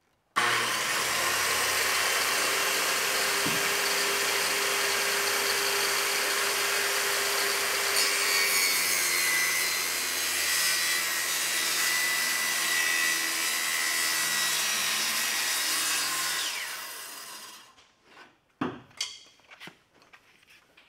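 Handheld circular saw cutting along the edge of a plywood hull panel, trimming the excess back. It runs steadily for about sixteen seconds, then winds down, followed by a few light knocks.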